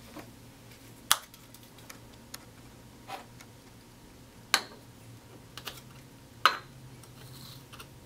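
Several separate sharp clicks and taps of small objects being handled: the wooden vaporizer box with its sliding acrylic lid and a small glass herb jar, the three loudest about a second in, midway and near the end.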